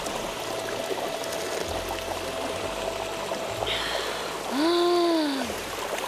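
Mountain stream below a mossy waterfall running steadily, with water dribbling from cupped hands. About five seconds in, a short hum rises and falls in pitch and is the loudest sound.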